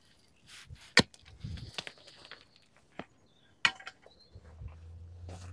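Pickaxe striking a pile of dirt and broken brick rubble: two sharp strikes, about a second in and near four seconds in, with lighter knocks and scraping of loose debris between them. A faint low hum sets in near the end.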